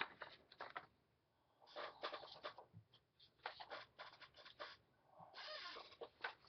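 Paper rustling and sliding as sheets are handled, in four short spells with quiet gaps between.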